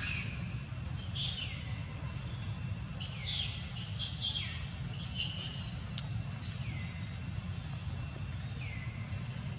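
Short high-pitched animal calls, each sliding down in pitch, come again and again every second or two. A steady low rumble runs underneath.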